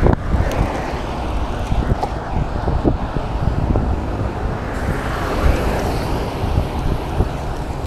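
Wind rumbling on the microphone of a moving road bicycle, with road traffic running alongside. A motor vehicle passes in the next lane about five seconds in.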